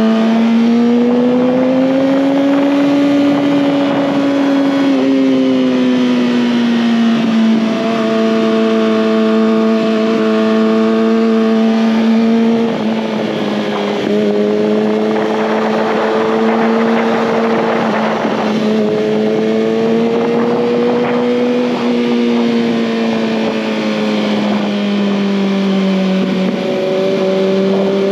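2019 Kawasaki ZX-6R's 636 cc inline-four engine running hard under way, its pitch rising and falling with the throttle and stepping down suddenly a few times at gear changes. A rush of wind noise swells in for a few seconds midway.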